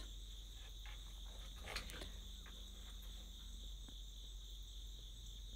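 Steady high-pitched insect trilling, like crickets, with a faint scrape of a palette knife on the painting panel about two seconds in.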